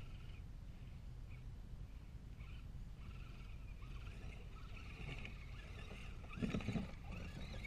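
Electric motors and gears of 1/10-scale Axial SCX10 RC crawler trucks whining as they drive through wet mud, coming and going as the trucks pass. A brief louder burst of tyre noise from the mud comes about six and a half seconds in.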